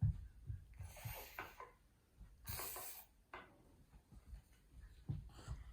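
Faint handling noises from a child's plastic toy tool set: light knocks and rubbing, with a short swish about two and a half seconds in.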